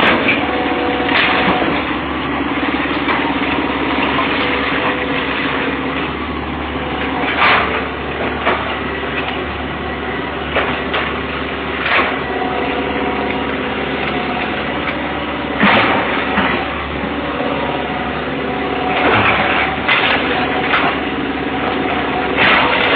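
John Deere excavator's diesel engine running steadily under load while its bucket tears into the wooden wreckage of a demolished house. Repeated crashes and clatter of breaking wood and falling rubble come every few seconds, with a cluster of them late on.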